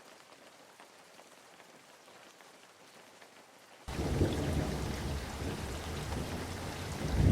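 Rain, at first faint with scattered drop ticks. About four seconds in it jumps suddenly much louder, with a deep rumble underneath that grows stronger near the end.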